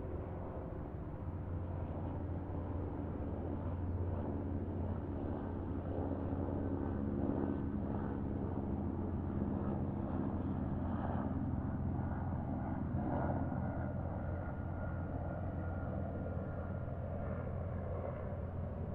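Highway driving noise: a steady low drone of engine and tyres on the road, swelling slightly in the middle of the stretch.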